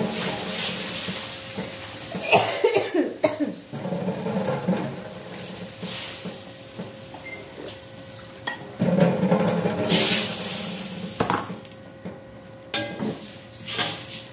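Water poured into a wok of frying spice paste, sizzling and bubbling, with a spatula scraping and clinking against the wok. Louder stretches come near the start, a few seconds in and about two-thirds of the way through.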